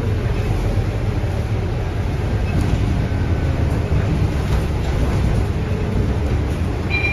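Cabin noise of a Scania K230UB single-deck bus on the move: a steady low diesel engine and drivetrain rumble with tyre and heavy-rain noise over it. A short high beep sounds near the end.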